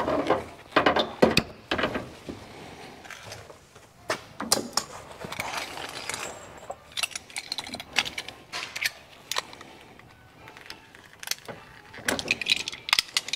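Clicks, snips and scraping of hand tools working heavy electrical wire as it is cut and its insulation stripped at the panel.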